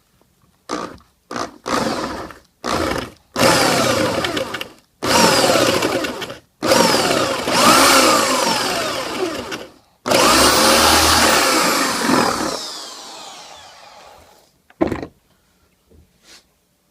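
Electric drill with a 1-1/8 inch bit boring out the old glued knot from a shaving brush handle, run in a series of bursts that get longer, the last one winding down slowly. A single knock follows near the end.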